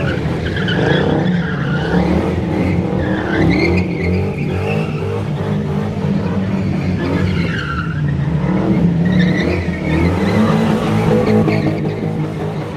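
Cars doing donuts on asphalt: engines held at high revs while the tires squeal and skid, a wavering screech over a steady engine drone.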